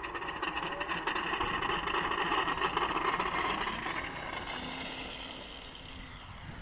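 Electric motor and propeller of a radio-controlled F4U Corsair model plane opening up to takeoff throttle, starting suddenly with a loud steady whine. The sound fades over the last few seconds as the plane rolls away across the grass for takeoff.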